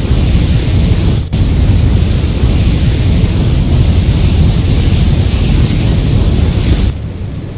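Flamethrower blast: a loud, steady rush of noise, heaviest in the low end, with a momentary break about a second in. Near the end it drops suddenly to a quieter rush.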